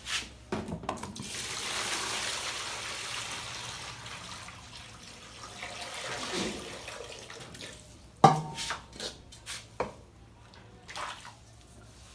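Water pouring into a container, a steady splashing hiss lasting about six seconds. It is followed by a sharp knock and a few lighter clatters of the container.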